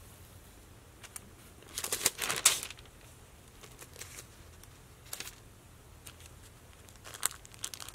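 Faint rustling of Bible pages being leafed through: a flurry of page turns about two seconds in, a brief one around five seconds, and another near the end.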